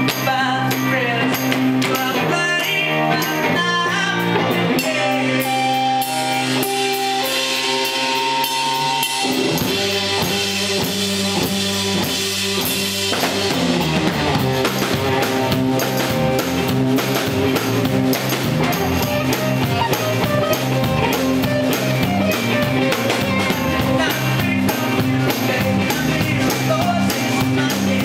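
Live rock band playing on drum kit, electric guitar and bass guitar. The bass comes in about ten seconds in, and the band fills out a few seconds later.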